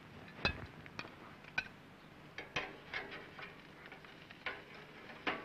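Metal barbecue tongs and plates clinking and knocking as steak is served off the grill plate: a string of separate light clinks, a few ringing briefly.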